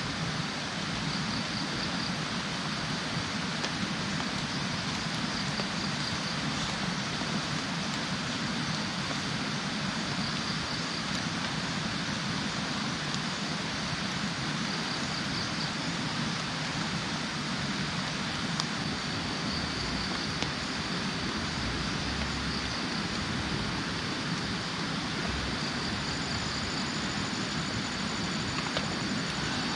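Steady rushing outdoor background noise, with faint high-pitched chirping coming and going every few seconds.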